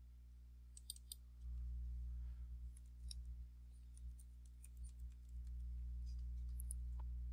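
Faint computer keyboard keystrokes and mouse clicks, a scattered run of light clicks, while a word is typed into a text box. A steady low hum lies under them and grows stronger about a second and a half in.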